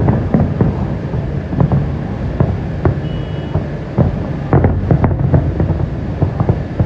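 Fireworks going off in a rapid, irregular series of bangs and pops over a steady low rumble.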